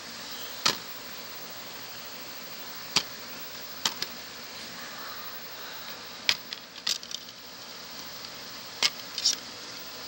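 Plastic VCD case being handled and opened and the disc taken out: a string of sharp clicks and taps, some in quick pairs, over a steady hiss.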